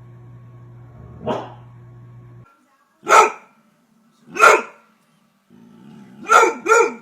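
German Shorthaired Pointer barking: a softer bark about a second in, then two loud single barks a little over a second apart, and a quick pair of loud barks near the end.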